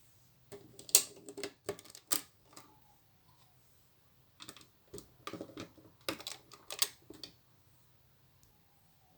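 Plastic Lego pieces clicking as they are handled and pressed together, in two bursts of quick clicks with a pause between.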